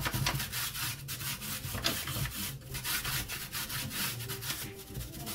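Hand brush scrubbing an air cooler's removable slatted filter panel in quick, repeated strokes to clean off the dust.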